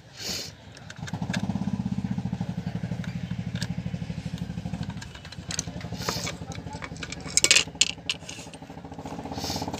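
A small engine running steadily, starting about a second in and fading back after a few seconds, with a few sharp metallic clicks near the end as a screwdriver works the back cover off an electric iron.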